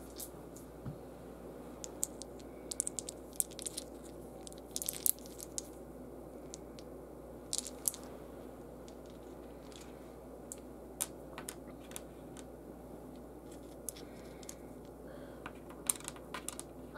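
Small wooden game pieces clicking against one another in a hand and being set down on a table. The sharp clicks come in scattered small clusters over a steady low room hum.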